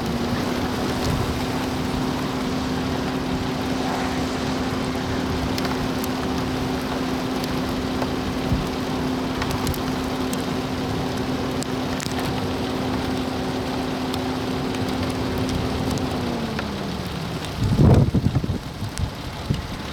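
Rain and road noise heard from inside a moving vehicle, under a steady engine hum that rises in pitch at the start, holds level, then falls away about sixteen seconds in as the vehicle slows. Near the end come a few loud low rumbling gusts.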